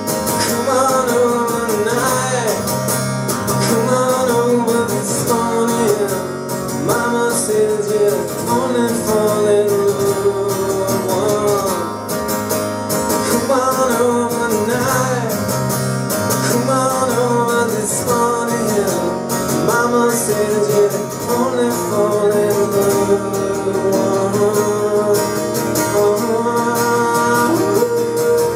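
Live solo performance: a strummed acoustic guitar with a man singing a wavering melody over it.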